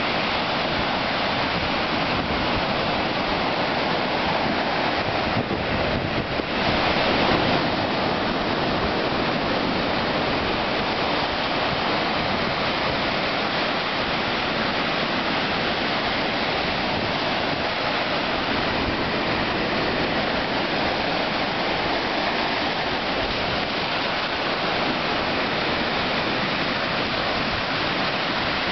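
Ocean surf breaking on a sandy beach: small waves crashing and washing up the sand in a steady rush, with one wave swelling louder about seven seconds in.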